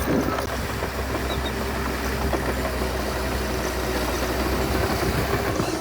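Heavy diesel engine of an earthmoving machine running steadily at a low, even speed.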